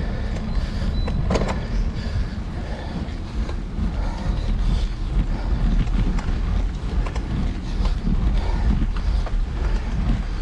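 Wind and road rumble on the microphone of a camera riding on a moving road bicycle, with scattered clicks and rattles from the bike, one sharper click about a second and a half in.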